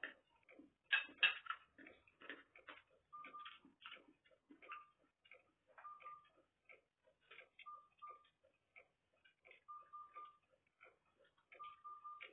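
Eating sounds: chewing and lip-smacking, a quick irregular run of faint clicks, with a louder cluster about a second in.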